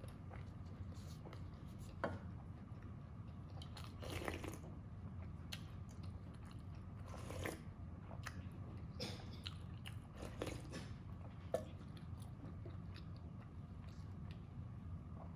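Close-miked eating sounds: soft, wet chewing and mouth noises with scattered crunchy bites and a few sharp clicks, over a low steady hum.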